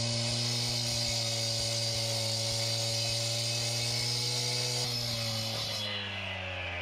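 Stihl gas-powered cut-off saw running at full speed with its blade down in the pavement, a steady high engine whine with a grinding hiss over it. About six seconds in, the engine starts to slow and its pitch falls.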